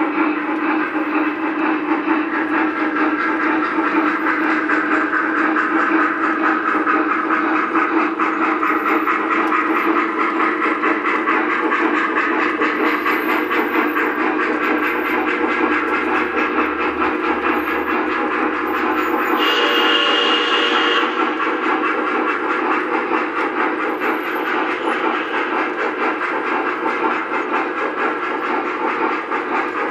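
Lionel O-gauge model steam locomotives running on a three-rail layout: a steady rumble of wheels and motors on the track, mixed with the locomotives' electronic steam sounds. About two-thirds of the way through comes a short, brighter hiss with a high tone.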